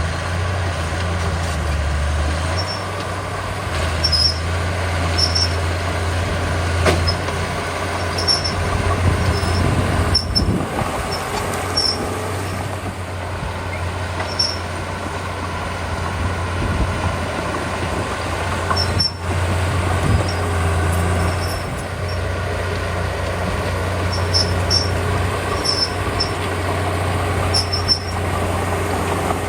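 Small crawler bulldozer's diesel engine running steadily at work, a constant low drone, with short high-pitched squeaks recurring every second or so.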